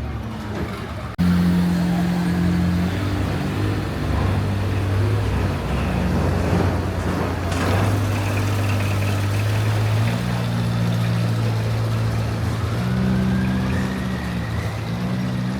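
Longtail boat engine running, its pitch shifting up and down in steps with the throttle. It gets suddenly louder about a second in.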